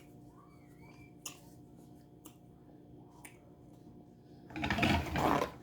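A person eating head-on shrimp: a few soft mouth clicks over a faint steady hum, then a loud, noisy burst of eating sound lasting about a second near the end.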